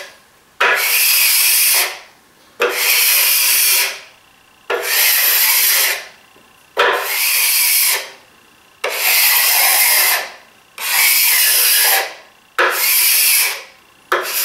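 Hand scraper drawn over a dried coat of wood finish on a plywood cabinet top, seven strokes about two seconds apart, each starting sharply and trailing off as a scratchy hiss. The finish is being scraped smooth in place of sanding between coats.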